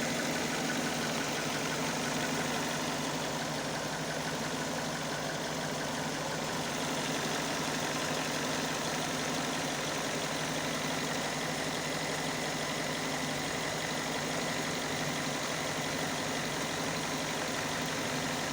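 Overhauled Hyundai i40 2.0 G4NA petrol engine idling steadily, heard from underneath the car. It runs evenly with no knocking or rattling, the sign of a successful rebuild.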